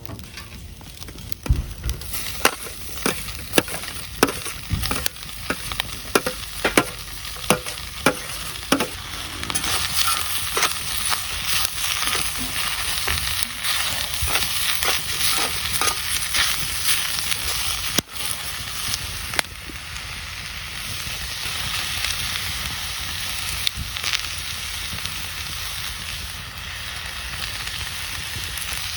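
Food frying in a hot pan: a run of sharp taps comes first, about one or two a second, then a steady sizzle takes over about a third of the way in and goes on, with occasional clicks of a utensil stirring.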